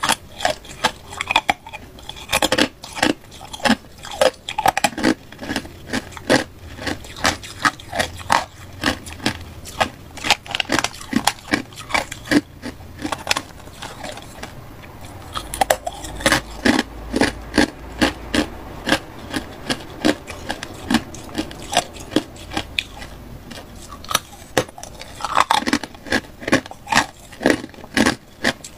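Hard ice being bitten and chewed close to the microphone: a steady run of sharp, crisp cracks and crunches, several a second, with short pauses between bites.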